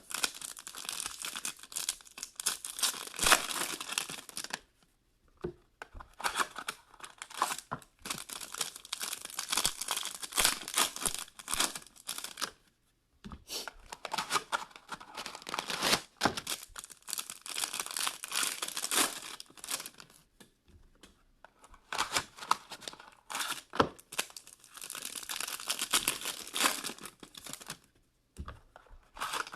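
Trading card box packaging being torn open and crinkled by hand, in irregular spells of tearing and crackling with short pauses between them.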